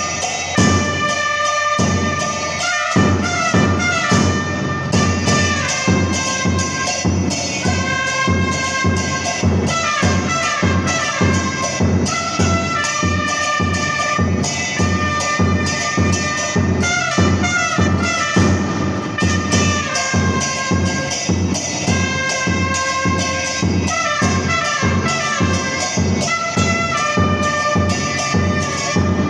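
Two trumpets playing a cumbia melody together in parallel lines over the steady beat of a bombo murguero (murga bass drum).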